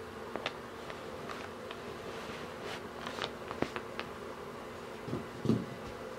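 Light taps and clicks of small game cubes and kitten paws on a cardboard game board, with a couple of duller thumps near the end, over a steady low hum.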